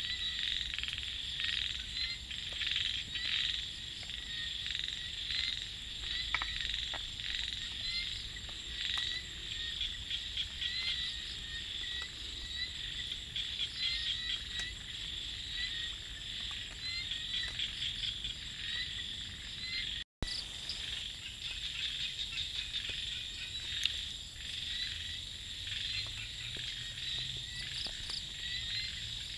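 Dusk chorus of small rice-paddy frogs (khiat), many calling at once in short rapid croaks, over a steady high trilling of insects. The sound cuts out for an instant about two-thirds of the way through.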